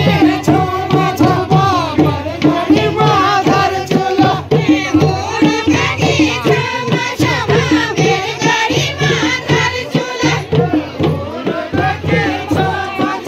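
Group of villagers singing a Kumaoni chanchari folk song together, over a steady drum beat.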